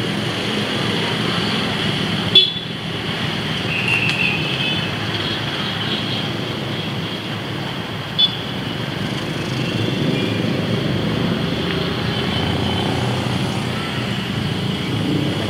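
Steady city road-traffic noise from passing vehicles, with a brief high horn toot about four seconds in. Two short sharp knocks stand out, the louder about two and a half seconds in and another about eight seconds in.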